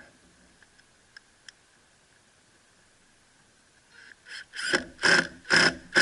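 A few faint clicks, then a power drill drives a screw in four or five short, loud bursts over the last two seconds.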